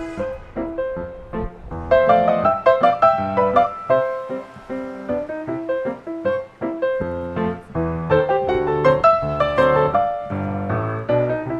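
Background piano music: a busy run of quick, separately struck notes over a bass line.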